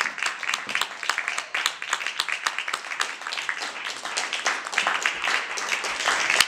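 Audience applauding: many hands clapping at once in a dense, irregular patter, swelling a little near the end.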